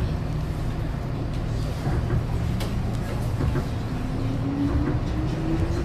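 Kintetsu electric train pulling away from a station, heard from inside the carriage: a steady low running rumble, and about two-thirds of the way in the traction motors' whine sets in and rises slowly in pitch as the train gathers speed.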